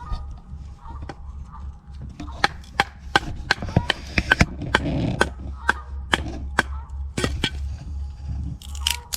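Dry wood cracking and snapping for a campfire: a quick, irregular run of sharp cracks, thickest in the middle.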